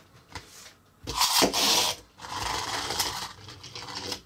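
Pullback motor of a small plastic Grubbin Happy Meal toy. A loud raspy rub about a second in as it is pushed back along the table, then a steadier whirring as it runs. It has a switch mechanism that makes it drive back and forth.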